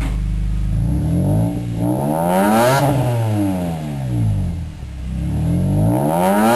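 BMW E46 M3's S54 straight-six breathing through an aftermarket Solid Design titanium exhaust muffler, revved from idle toward 6,000 rpm. It climbs about a second in, peaks and falls back, then climbs again near the end.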